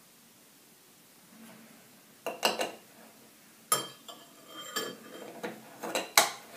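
A metal spoon and glass kitchenware clinking: a spoon against a glass mixing bowl and small glass containers being handled, about half a dozen sharp clinks starting about two seconds in.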